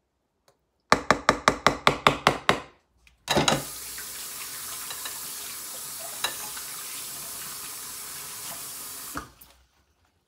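A quick run of about ten sharp knocks, then a kitchen tap turned on and running steadily for about six seconds before it is shut off.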